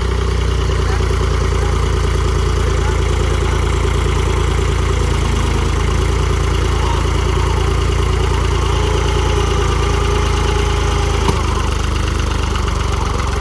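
Diesel engine of a New Holland tractor stuck in paddy-field mud, running steadily at an even speed.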